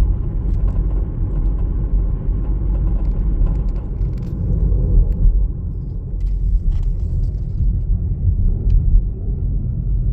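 Gusty wind buffeting the microphone: a loud low rumble that rises and falls with the gusts.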